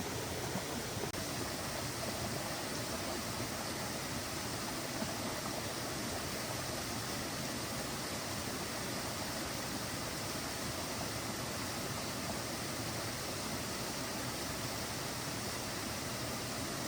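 Steady, unbroken rushing noise of water, even throughout with no rhythm or distinct events.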